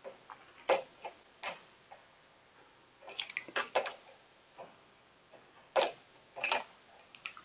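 Irregular sharp clicks and taps from hand tools and bike parts being handled while a shifter is removed, with a quick cluster of them about three seconds in and two louder ones near the end.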